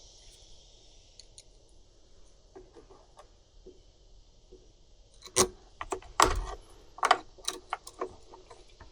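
Sharp clicks and small metallic rattles of hand tools and plastic parts being handled while working around a leaf blower's carburetor and primer bulb, a few faint ones at first and a quick cluster from about five seconds in.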